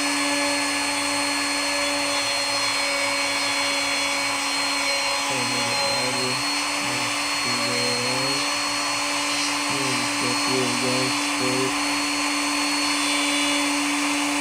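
Handheld wood router running steadily with a constant whine while it cuts a shallow recess into a hardwood tabletop for a bow-tie inlay, worked down slowly in passes.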